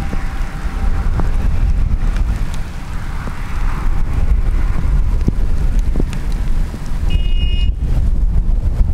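Storm wind buffeting the microphone in a heavy, uneven low rumble, with scattered sharp ticks. A short high tone sounds about seven seconds in.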